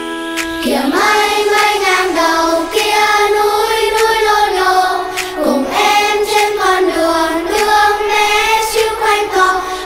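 Song with a choir of children's voices singing a melody together over backing music, the voices coming in about a second in after a brief instrumental opening.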